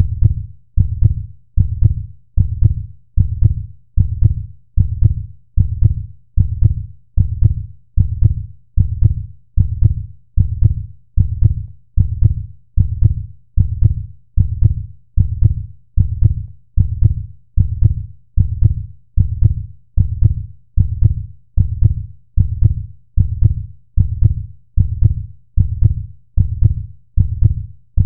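Recording of a heartbeat: a steady run of low, dull thuds at about one and a half beats a second.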